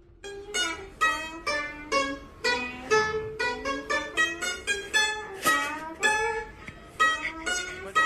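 A Chinese plucked lute playing a melody of quick, separately plucked notes, several a second, some of them bending in pitch.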